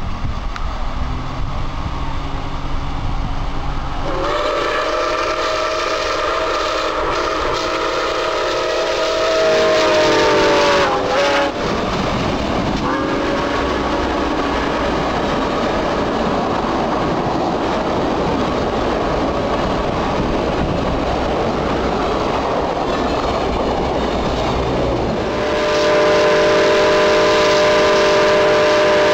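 Milwaukee Road 261, a 4-8-4 steam locomotive, blowing its chime whistle in one long blast of several tones at once, which bends down in pitch as it stops about eleven seconds in. Then the train's wheels rumble and clatter over the rails as it passes, and near the end the whistle blows again.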